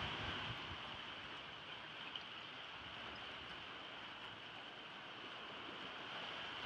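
Faint, steady shoreline hiss of small waves washing over the rocks at the water's edge.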